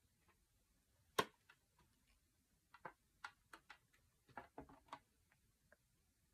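Small clicks and taps of a plastic eyeshadow palette being handled: one sharp click about a second in, then a quick run of lighter clicks and taps for a couple of seconds.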